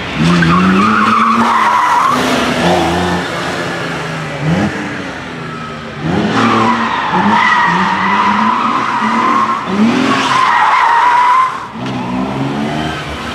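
Lancia Stratos Stradale's Ferrari Dino V6 revving hard, its pitch climbing and dropping again and again, while the tyres squeal through powerslides. The squeal is the loudest sound and comes in three long stretches: briefly at the start, then a long one about six seconds in, running straight into a shorter one that stops a couple of seconds before the end.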